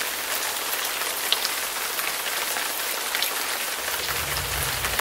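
Steady rain falling on a ribbed metal roof and dripping from its edge, an even hiss with scattered sharper drop hits. A low rumble comes in under it near the end.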